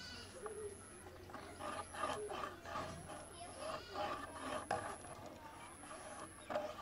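Fingers scratching and rubbing on a camera body, with short clicks, and faint pitched calls behind.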